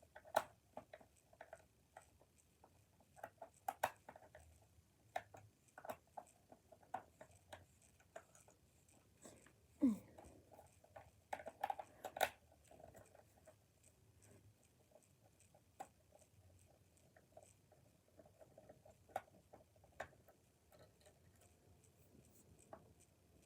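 Faint, scattered small clicks and taps of a cheap plastic game controller being handled and unscrewed, with a few louder knocks, one about ten seconds in.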